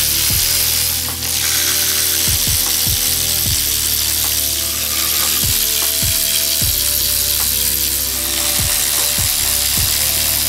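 Background music with a beat and held chords. Under it, a cordless electric ratchet runs in short bursts, backing out the bolts of the transmission's top plate.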